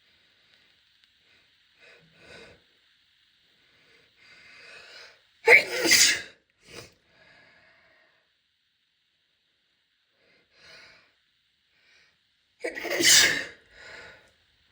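A woman sneezing loudly twice, about seven seconds apart. The first sneeze comes after an in-breath that grows louder over about a second, and a short, quieter sound follows each sneeze.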